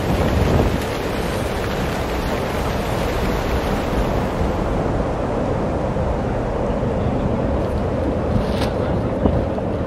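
Strong wind blowing steadily and buffeting the microphone, with one brief click near the end.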